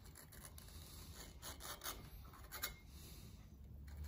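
A steel scribe scratching along the inside edge of an intake gasket into the port of a cast-iron Ford E7 cylinder head, marking the port outline: a series of short, faint scraping strokes.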